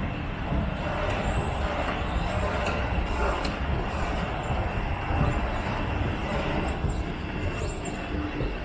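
Steady low rumble and hiss of a station's machinery, with a few faint short high squeaks near the end.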